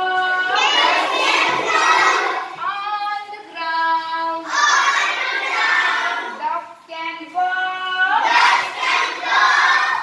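A class of young children singing together in unison, in phrases of long held notes.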